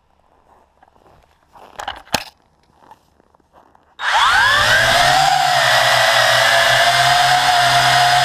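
Faint handling rustles and one sharp click, then about halfway through the WLtoys V262 quadcopter's motors and propellers spin up suddenly. Their whine rises in pitch and settles into a loud, steady drone as the quad lifts off.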